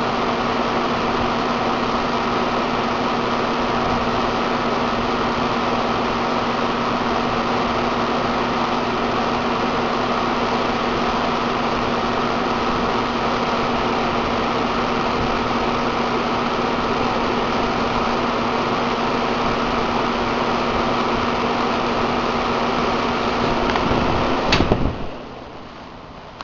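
A 1991 Ruud split-system air conditioner running: a steady fan noise with a constant hum. It cuts off with a sharp click near the end.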